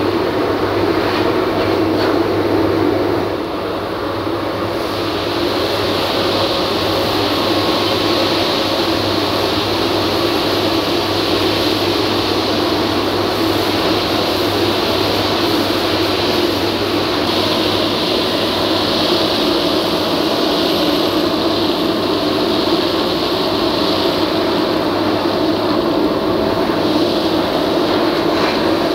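Wieland FS-216 industrial wet-and-dry vacuum running steadily, its suction nozzle drawing up metal swarf and coolant from a machine tool's work area. The level dips a little about three seconds in, then holds steady again.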